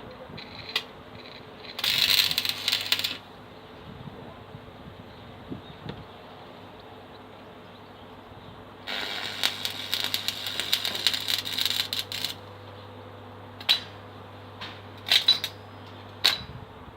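Stick welder arc with an E6013 electrode being struck: a crackling arc of about a second a couple of seconds in, a longer crackling run of about three seconds in the middle, then a few brief crackles near the end as the arc catches and dies. The stop-start arc is a sign of the electrode sticking and failing to hold an arc, which the welder puts down to not warming the electrodes and to the machine's settings.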